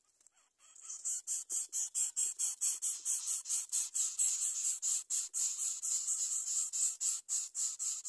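Greater coucal nestlings begging: a fast run of short hissing calls, about five a second, starting about a second in.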